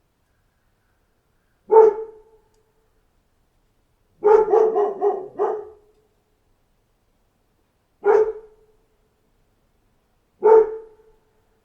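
A dog barking: one bark, then a quick run of about five barks, then two more single barks a few seconds apart, with silence between.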